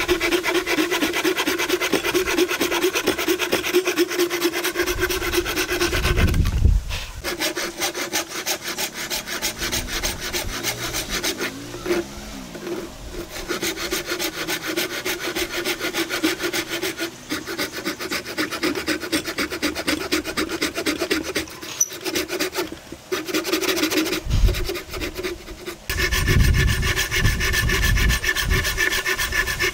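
Hand saw cutting into a solid wooden block with fast back-and-forth rasping strokes. It stops briefly a few times between cuts.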